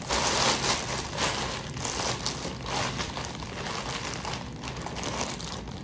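Food packaging crinkling and rustling as it is handled, a steady run of small irregular crackles with no talk over it.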